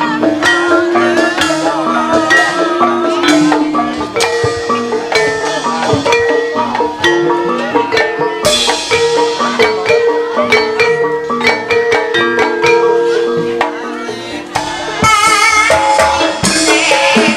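Javanese gamelan playing ebeg accompaniment: ringing metallophones and bonang kettle gongs over frequent drum strokes. A woman's singing voice with vibrato comes over the ensemble at the start and again near the end.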